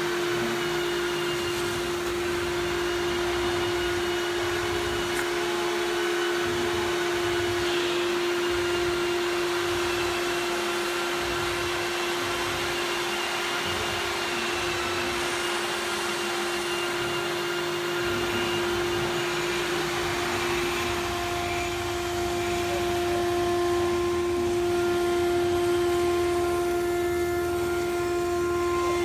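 CNC router running under test, its spindle giving a steady, unchanging whine over a machine hum.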